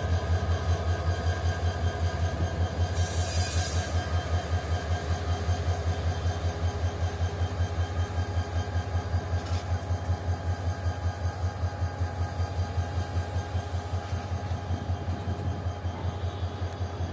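Diesel-hauled passenger train rolling slowly past: a strong low rumble that pulses evenly about four times a second, with a brief hiss about three seconds in.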